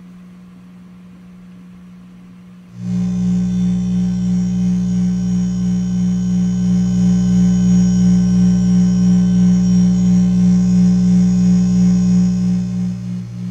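Electronic drone from two chained Sound of Shadows v3 delay modules in a Eurorack synth. A low hum comes in about three seconds in as a loud sustained drone of many stacked tones, wavering slightly, then drops back near the end into a quieter pulsing drone.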